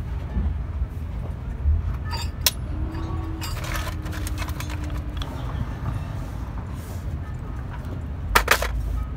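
Metal clinking and clicking as small parts are fitted and handled around a truck gearbox's geared clutch drum: a few sharp clicks, a run of lighter ones, then a louder cluster near the end. A steady low rumble runs underneath.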